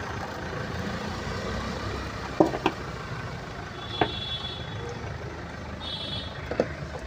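Steady rumble of road traffic, broken by a few short sharp knocks and two brief high-pitched electronic beeps.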